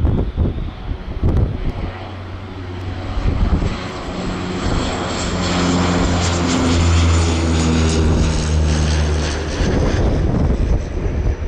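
Canadair CL-415 water bomber's twin turboprop engines and propellers running as it passes, building to a steady low propeller hum around the middle and fading away near the end. Wind noise on the microphone underneath.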